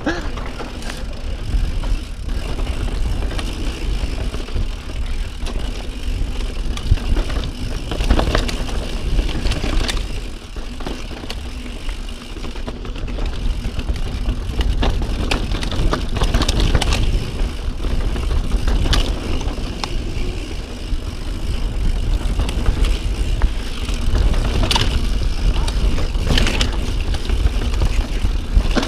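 Santa Cruz Bronson C full-suspension mountain bike ridden fast down a dirt and sandstone singletrack: continuous wind rumble on the camera microphone over tyre noise on dirt and rock, with frequent sharp knocks and rattles as the bike hits bumps and rocks.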